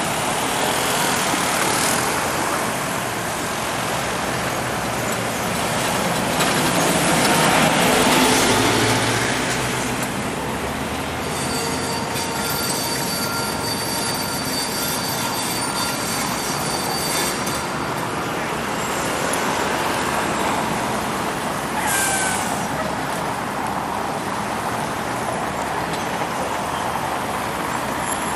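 City traffic on a wet road: buses and cars passing with a steady hiss of tyres and engines, swelling about eight seconds in as a vehicle goes by. A thin high squeal holds for several seconds near the middle, and a shorter falling squeal comes a little later.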